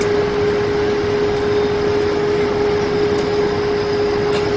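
Steady air-conditioning hum inside an Airbus A220-300 cabin, with one constant tone over an even rush of air.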